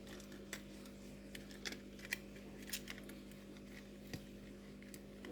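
Faint, irregular small clicks and taps as a laptop RAM module is handled and fitted into its slot, over a steady low hum.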